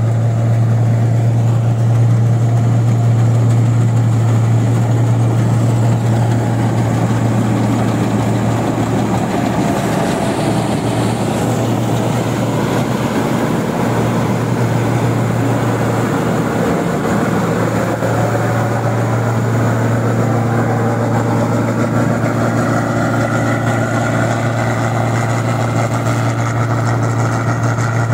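New Holland 8060 combine harvester running steadily as it cuts and threshes rice in a paddy field, a loud, constant low engine hum with the clatter of the machine over it.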